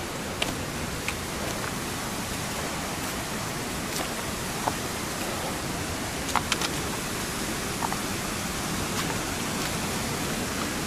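Steady rush of a waterfall and stream cascading over rocks, with a few faint clicks scattered through it.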